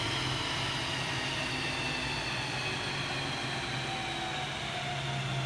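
Metal-cutting machine tool running steadily: a low hum under a high whine that slowly falls in pitch.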